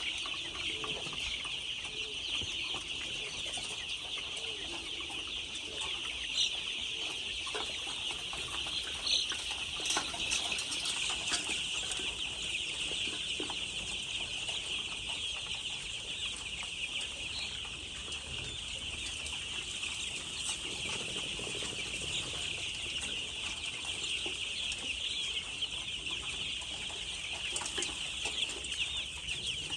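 A large flock of chickens clucking and calling together in a dense, unbroken chorus, with a few louder single calls standing out.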